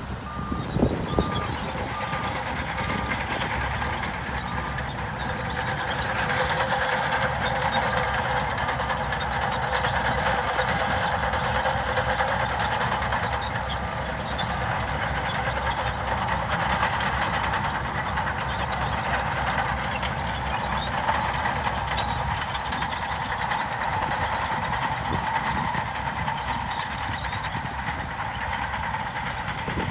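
Heavy earthmoving machinery running with a steady diesel engine noise, while a reversing alarm beeps at an even pace through the first half and then fades out. A couple of sharp knocks come about a second in.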